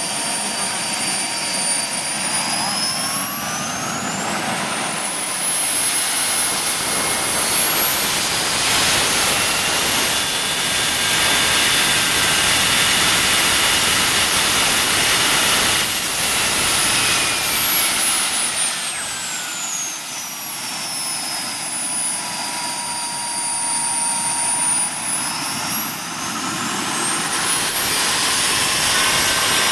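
PST 600R model jet turbine running on the ground with a steady high whine. It spools up about 4 to 8 seconds in, holds at high speed, winds back down to idle, then spools up again near the end, growing louder at high speed.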